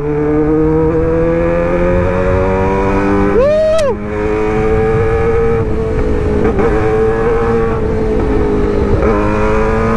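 Suzuki GSX-R600 inline-four engine pulling steadily under way at about 100 km/h, its pitch climbing slowly for the first few seconds and then holding, over a low rush of wind. A short rising-and-falling tone about three and a half seconds in.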